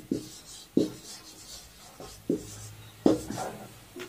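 Hand writing during a lecture: a few short scratchy strokes of a pen or marker, with pauses between them.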